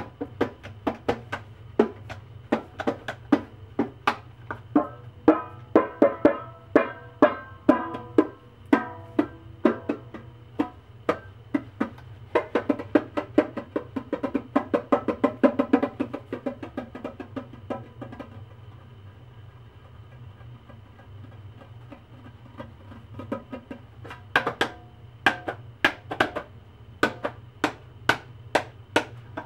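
A small handheld percussion instrument tapped and struck by hand in a loose rhythm: sharp knocks, each with a short pitched ring. The strikes come thick and fast in the middle, drop away to faint tapping for several seconds, then pick up again near the end. A steady low hum runs underneath.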